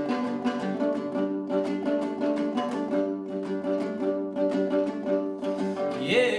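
Dombra strummed in a quick, even rhythm, playing an instrumental passage of a Kazakh folk song. A singing voice comes in with a rising note near the end.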